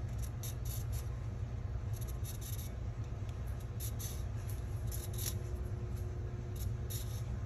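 Lemon being zested on a rasp-style grater: about a dozen short, irregular scraping strokes of the peel across the metal teeth, over a steady low hum.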